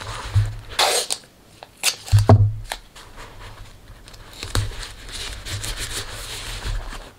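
Masking-taped newspaper armature being squeezed and handled: irregular crinkling and rustling of tape and paper, with a few sharp knocks and low bumps on the table, the loudest just after two seconds in.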